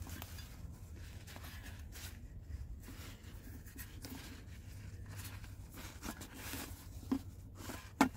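Fabric stuff sack rustling and scraping as it is worked up over a stainless steel pot, with two sharp knocks near the end, the second the louder.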